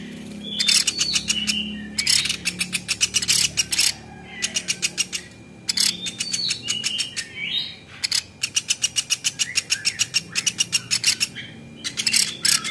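Velvet-fronted nuthatch (platuk beras) calling. It gives repeated runs of rapid, sharp chips at about a dozen a second, each run one to three seconds long, with short whistled notes between the runs.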